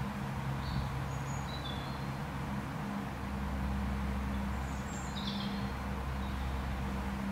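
Outdoor ambience: a few short, high bird chirps, about a second in and again near five seconds, over a steady low hum and a haze of background noise. The hum steps up in pitch about three seconds in.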